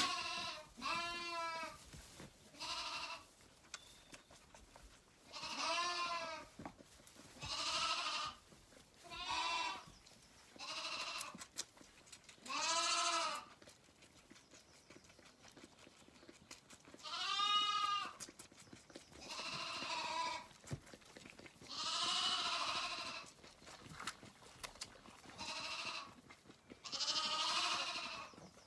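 Zwartbles lamb bleating over and over, about a dozen wavering calls each under a second long, one to four seconds apart: a hungry lamb calling for its bottle.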